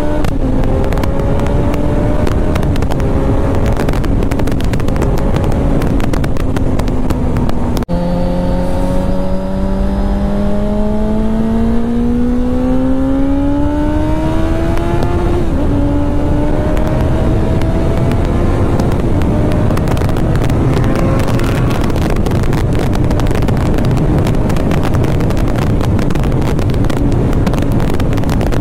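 Kawasaki Z900's inline-four engine under hard acceleration, its note climbing steadily and dropping sharply at an upshift about halfway through. Wind rush on the helmet microphone grows louder as the speed climbs past 170 km/h.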